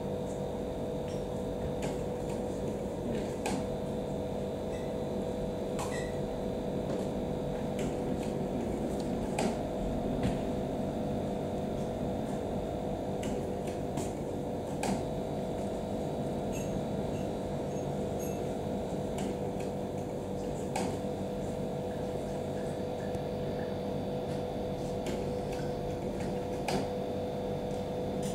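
Steady machine hum from a fan or similar appliance in a small room, holding two steady tones, with scattered faint clicks and taps.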